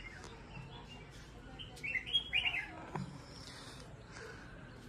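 A bird chirping: a quick run of short, high chirps about two seconds in, the loudest sound here, with a single sharp tap about a second later.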